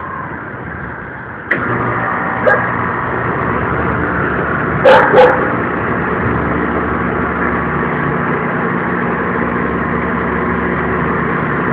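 Steady street traffic noise with a motor vehicle's engine running, which gets abruptly louder about a second and a half in. Two short, sharp sounds stand out about five seconds in.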